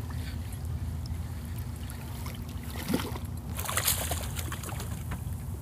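Hooked fish splashing at the water's surface beside the boat as it is reeled in, with a short burst of splashing about three and a half seconds in. A steady low rumble runs underneath.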